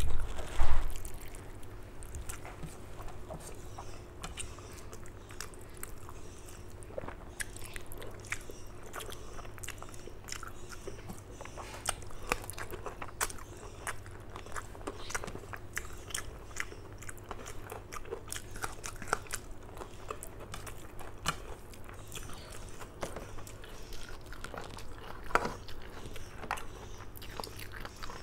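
Close-miked chewing and mouth sounds of a person eating rice with mutton curry by hand: wet smacks and clicks of chewing, with the squish of fingers mixing the rice. A couple of loud knocks about a second in, over a faint steady hum.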